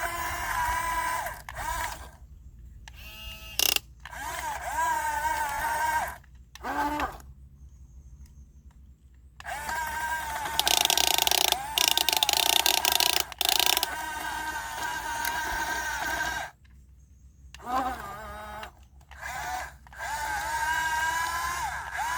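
Remote-control excavator's electric hydraulic pump whining in bursts of a few seconds, its pitch dipping and rising under load as the boom and bucket work. A harsher hiss joins in during the long burst in the middle.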